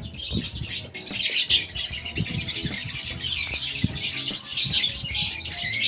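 Small parrots chirping and chattering continuously, many calls overlapping, with a few soft knocks from handling.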